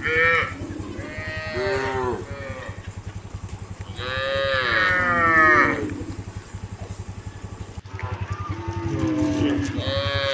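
Several cows mooing in turn, the calls long and drawn out and sometimes overlapping; the loudest is a long moo about four seconds in. A steady low rumble runs underneath.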